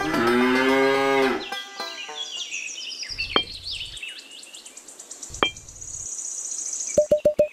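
A cow moos once, a single long call lasting over a second, followed by high bird chirps. Two light taps come a couple of seconds apart, and near the end a fast run of repeated musical notes begins.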